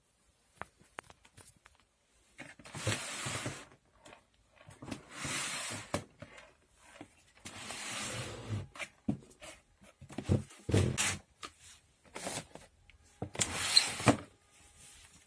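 Objects being handled: repeated sliding, rustling sweeps, each about a second long, with a couple of sharp knocks two-thirds of the way through.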